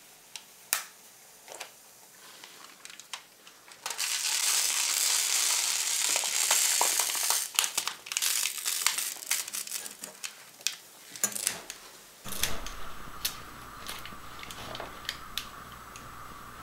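A rubber balloon being squeezed down into liquid nitrogen in a steel bowl: the frozen, stiffened rubber crinkles and crackles. A few seconds in comes a dense hissing crackle lasting about three seconds, followed by scattered sharp crackles and clicks. A steady low hum sets in about two-thirds of the way through.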